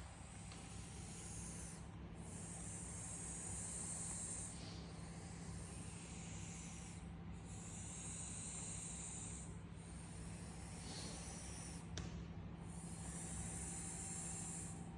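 Plump cat snoring in its sleep: a breathy, hissing snore on each breath, about one every two and a half seconds.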